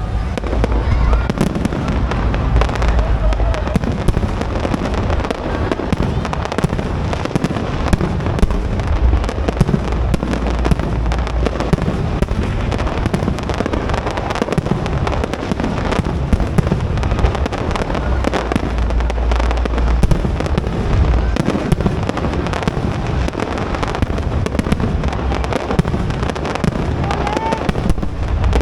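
Aerial fireworks display: a continuous barrage of shell bursts and crackles with deep booms, going on without a break.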